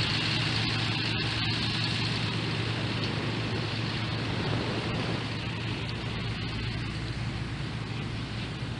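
John Deere tractor's diesel engine pulling a Beach King beach-cleaning machine, running at a steady low hum and slowly getting quieter as it moves off.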